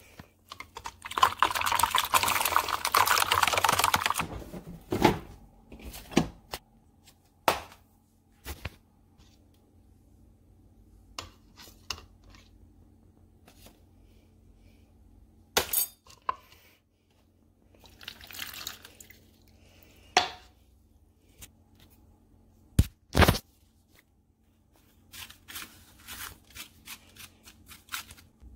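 Kitchen handling sounds of a metal spoon in a paper cup of snow: scattered sharp clicks and knocks, two loud ones close together past the middle, and a run of small scraping clicks near the end as the snow is stirred. A loud rustling spell of about three seconds comes about a second in.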